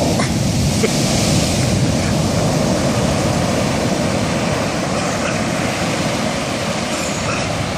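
Big ocean waves breaking and the surf washing in: a loud, steady roar, heaviest in the first couple of seconds and easing slightly toward the end.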